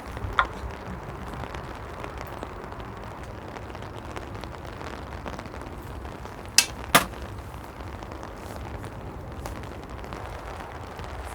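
Sharp clicks or knocks over a steady background rumble: one about half a second in, then two about half a second apart near the seven-second mark.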